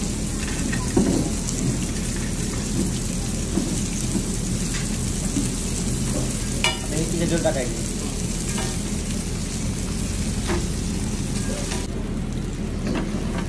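King mackerel (surmai) slices shallow-frying on a flat griddle, sizzling steadily over a constant low hum, with a few short clicks of tongs and plates.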